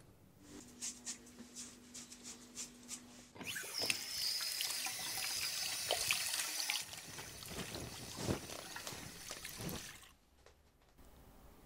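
A series of light clicks, then a bathroom tap suddenly running into a sink for about three seconds. After that come quieter splashing and small knocks during shaving, which stop about ten seconds in.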